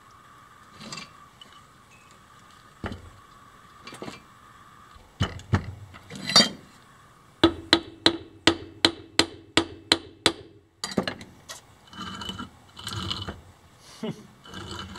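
A ball-peen hammer strikes the steel shaft of an electric boat motor standing in its housing, a quick run of about a dozen ringing metal blows, roughly four a second, after a few single knocks. The motor is being taken apart to reach its bearing.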